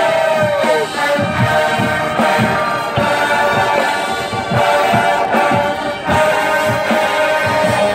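College marching band playing: the brass section holds loud chords over a steady drum beat. A horn note slides down in pitch near the start.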